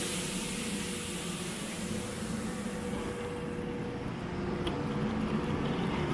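A train running slowly: a steady rumble of wheels on rail, with a faint steady whine for a couple of seconds in the middle.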